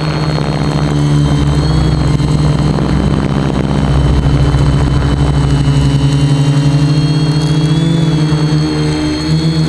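Quadcopter electric motors and propellers buzzing steadily in flight, with a high whine that shifts slightly in pitch as the throttle changes.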